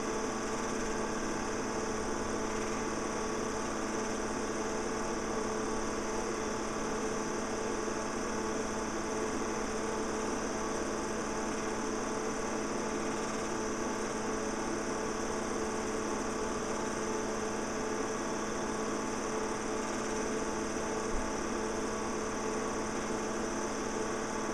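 Steady mechanical whirr of a home-movie film projector running.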